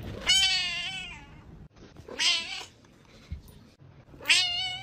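A cat meowing three times in long, drawn-out calls that waver in pitch: the first and longest at the start, a shorter one about two seconds in, and another near the end.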